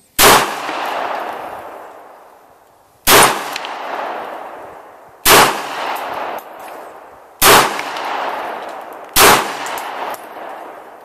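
Five pistol shots from a CZ 82 in 9x18 Makarov, fired one at a time about two to three seconds apart. Each sharp report trails off over a second or two.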